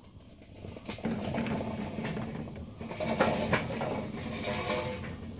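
Burning charcoal dumped from a metal chimney starter onto a smoker's firebox grate: the hot coals clatter and rattle down with a crackling rush, starting about a second in and going on for several seconds.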